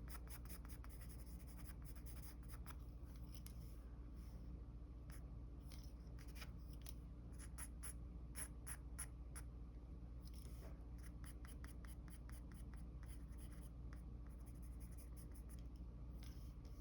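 Mechanical pencil scratching across paper in runs of quick, short sketching strokes with brief pauses, faint, over a steady low hum.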